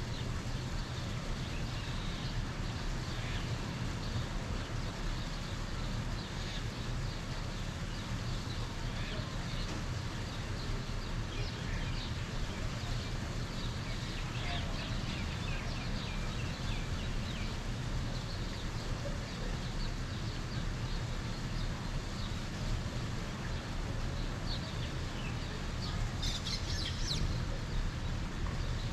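Small birds chirping in short, scattered calls over a steady low background rumble, with a brief flurry of louder chirps near the end.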